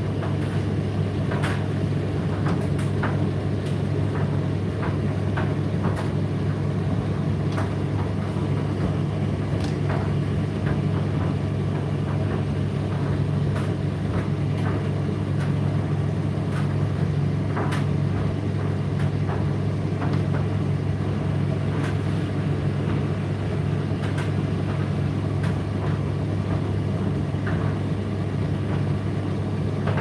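Indesit IDC8T3 8 kg condenser tumble dryer running mid-cycle: a steady low hum from the motor and turning drum, with scattered light clicks.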